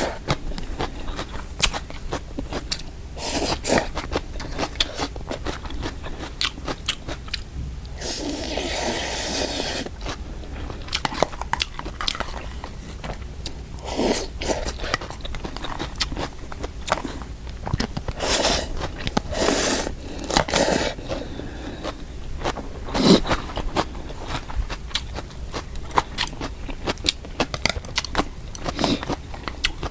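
Close-miked eating of mixed instant noodles: many short clicks of chewing and biting, with a longer noisy stretch of about two seconds near the start.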